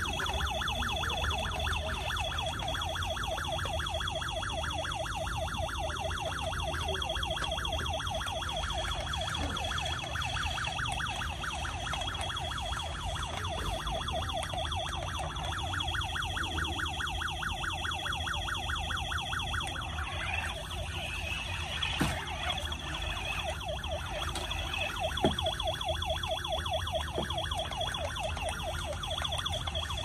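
Toy police vehicle's electronic siren sound effect: a rapid, evenly pulsing warble over a steady high tone, changing briefly about two-thirds of the way through, with a couple of light clicks.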